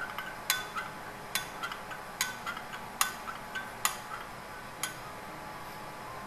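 A spoon stirring salt into hot water, clinking against the side of the container to dissolve the salt. There is a sharp clink a little under once a second with lighter taps in between, stopping about five seconds in.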